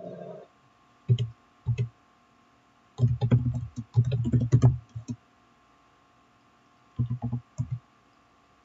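Typing on a computer keyboard: a couple of single keystrokes, then a quick flurry of keys for about two seconds, and a short burst more near the end.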